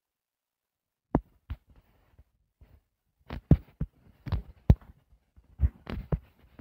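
Irregular soft taps and thumps of fingers on a touchscreen, picked up by the device's own microphone. About ten of them come in uneven clusters: the first about a second in, and most in the second half.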